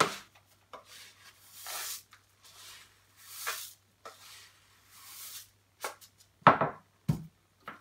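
Dry lentils sliding and rattling into a cardboard kitchen-roll tube in several short pours, each a brief hiss. Two dull thumps follow near the end.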